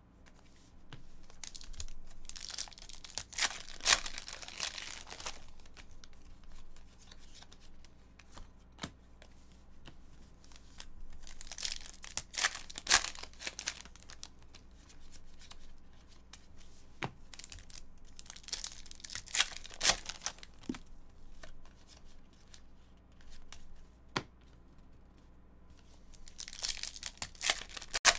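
Foil trading-card packs being torn open and crinkled, in several short bursts of crackling with sharp clicks between them.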